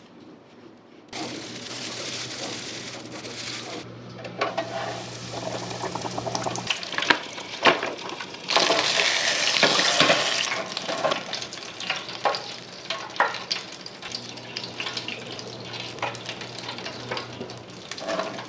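Cornmeal-battered whiting fillets deep frying in hot canola oil in an electric deep fryer, a steady sizzle full of sharp crackles and pops that grows louder around the middle.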